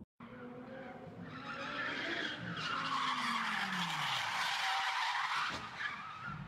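White Audi R8 driven hard with its tyres squealing loudly for several seconds as they spin and slide on the asphalt. Under the squeal the engine revs up and then its note falls away.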